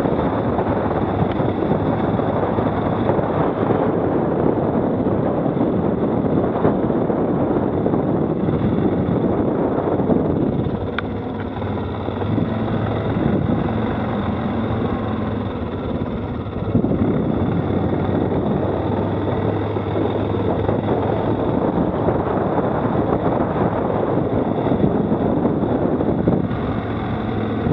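Stels 800D quad bike engine running while riding, with a steady low hum under the rumble of motion. About ten seconds in it eases off and goes quieter for several seconds, then pulls hard again.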